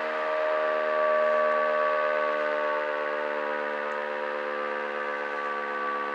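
Modified WW2 Elektror L1/F2 combination motor siren, a three-port fire-call unit bolted directly onto a nine-port air-raid unit, sounding a sustained wail. Several tones sound together at a nearly steady pitch. It swells slightly about a second in, then settles.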